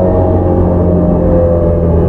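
Onboard running sound of a JR E231-series 0 motor car with a Mitsubishi IGBT VVVF inverter: a steady hum of several tones from the traction motors and gears over a loud rumble of wheels on rail as the train runs between stations.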